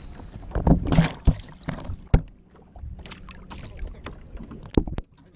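GoPro camera knocking and thumping against the boat as it is jarred loose and nearly goes overboard: a quick run of hard bumps between about half a second and two seconds in, then a few lighter clicks near the end, over the sound of water against the hull.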